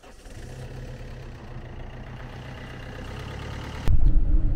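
Fiat Ducato campervan's diesel engine idling with a steady low hum; about four seconds in it gives way abruptly to a much louder low rumble of the van driving on the road, heard from inside the cab.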